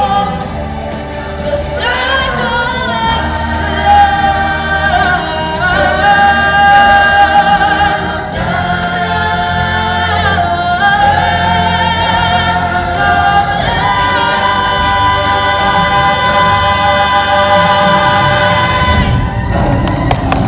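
A choir singing long, wavering held notes over musical accompaniment; the singing stops near the end.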